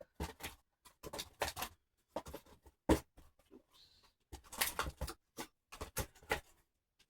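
Scentsy wax bars in their plastic packaging being handled and set into a storage container: an irregular run of plastic clicks, taps and knocks, with one sharper knock about three seconds in.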